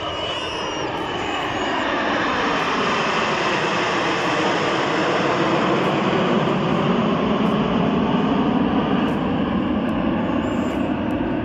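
A formation of jet aircraft flying past: a broad jet roar that swells over the first few seconds and is loudest in the second half, with a sweeping tone that falls in pitch as the formation passes.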